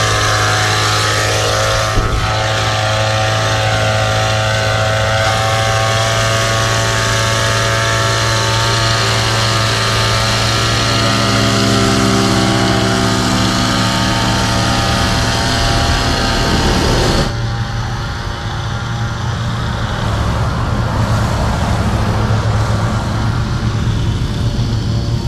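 Backpack engine-powered mist-blower sprayer with a small two-stroke engine, running steadily at high revs while spraying. About seventeen seconds in, the sound turns abruptly duller, with less treble.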